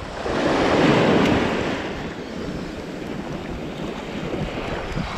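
Small waves washing in over sand in shallow surf, one wash swelling to its loudest about a second in and then settling to a steady hiss, with wind rumbling on the microphone.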